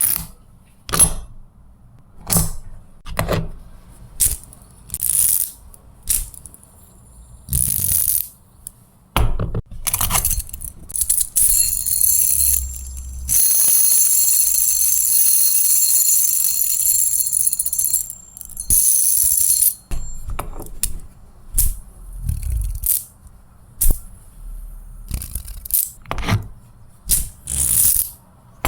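Metal fidget toys being handled: a series of sharp metallic clicks and clacks, with a continuous high, ringing whir for about five seconds in the middle as a metal spinner or top spins.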